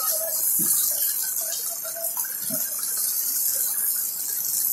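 Steady hiss of heavy rain and running floodwater.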